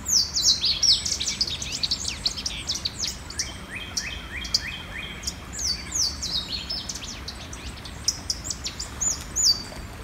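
Two Louisiana waterthrushes calling back and forth in a jumbled babble of many short, high, down-slurred notes, trying to establish their territory.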